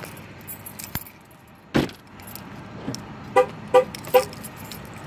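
Car keys jangling, a car door shutting with a thud a little under two seconds in, then three short beeps from the car in quick succession, about 0.4 s apart.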